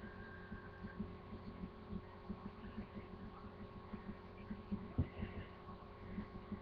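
Faint steady electrical hum with soft, irregular low thuds, and a couple of light knocks about five seconds in.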